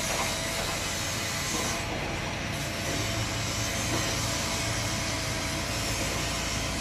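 Steady mechanical hum and hiss of a construction crane heard from high up on it, with a faint steady whine running through it.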